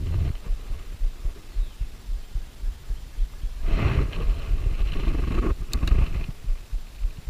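Handling noise from an angler working a spinning reel in a kayak: uneven low thumps throughout, a stretch of rustling about four seconds in, and a couple of sharp clicks near six seconds.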